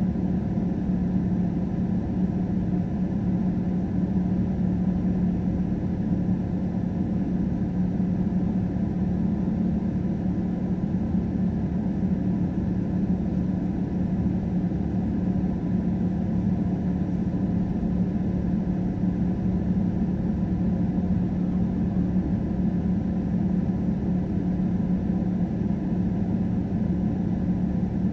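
A steady low drone inside a car's cabin as the car sits stopped with its engine idling.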